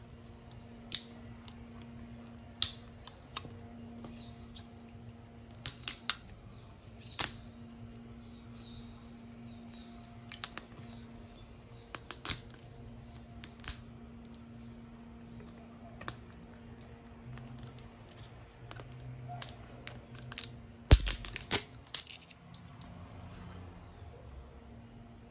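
Fingernails picking at and peeling a foil seal off the mouth of a plastic drink bottle: scattered sharp crinkles and clicks, with a louder knock and rustle about 21 seconds in. A faint steady hum sits underneath.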